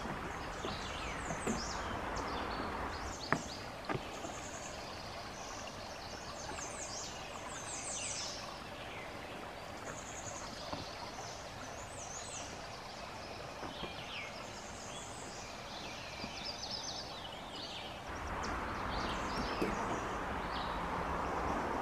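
Small woodland stream running over rocks with a steady rush, songbirds chirping over it again and again in short downward notes. A couple of knocks about three and four seconds in, footsteps on wooden boardwalk planks, and the rush grows louder near the end.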